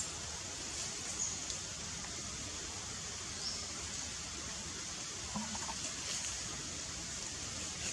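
Outdoor ambience with a steady high hiss and a few short, high-pitched chirps, and a brief low animal call about five and a half seconds in.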